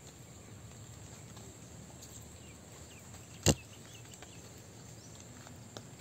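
Faint, steady rural outdoor ambience after rain, with a few small ticks, broken about halfway through by one sharp, loud click.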